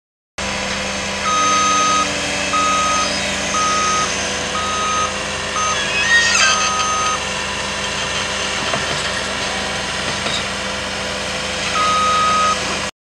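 Truck's backup alarm beeping about once a second over its running engine, stopping after about seven seconds and sounding again near the end. A brief clatter about six seconds in is the loudest moment.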